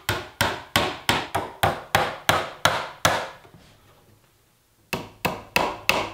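Claw hammer driving finishing nails through a wooden router jig into the edge of a door: quick, evenly spaced taps, about three a second. A pause of nearly two seconds comes past the middle, then the taps start again.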